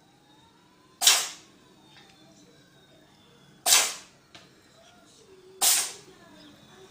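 An animal sneezing three times: short, sharp bursts about two seconds apart.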